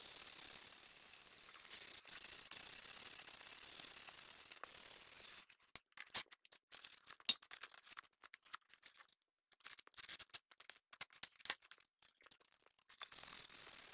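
Sandpaper rubbed by hand over a carved wooden bowl, a steady scratchy hiss. About five seconds in the rubbing stops and gives way to scattered crinkles and taps as the sandpaper is handled and refolded, and the steady sanding starts again near the end.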